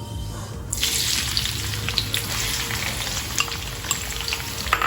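Chopped onions hitting hot oil in a karhai and frying: a dense sizzle with many small crackles that breaks out suddenly just under a second in.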